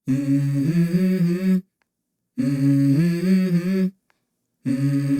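Background music: a short hummed vocal phrase that steps up in pitch, heard three times with dead silence between the phrases.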